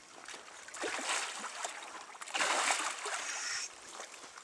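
Water splashing as a large hooked fish thrashes at the surface while being grabbed by hand in shallow water. There is a short splash about a second in and a longer, louder bout of splashing from about two seconds in.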